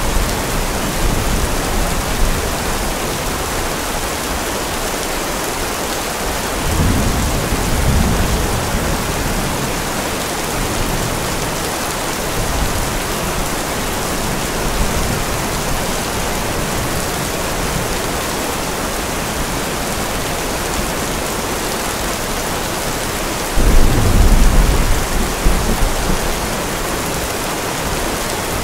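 Steady heavy rain with two rolls of thunder: a softer rumble about seven seconds in, and a louder one that breaks in suddenly late on and rolls for a couple of seconds.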